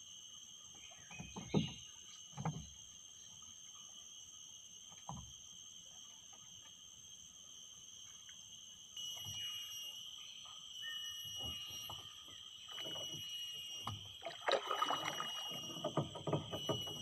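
Knocks and bumps of people and gear against a small wooden boat's hull, a few scattered at first, then busier near the end, over a steady high-pitched whine.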